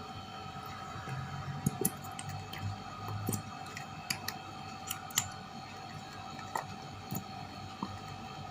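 White school glue being squeezed and poured from small plastic bottles into a plastic bowl: faint wet squishing with scattered light clicks and taps of plastic, over a steady low hum.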